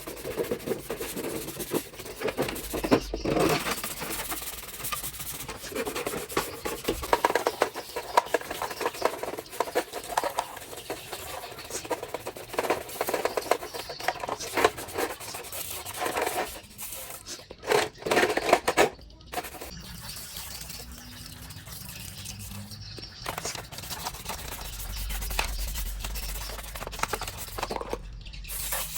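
Irregular rubbing and scraping with scattered clicks, from hands working on parts. The sound thins out in the last third.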